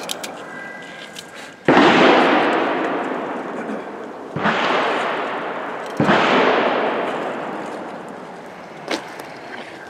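Three gunshots, about a second and a half to three seconds apart, each followed by a long echoing fade, with a smaller sharp pop near the end.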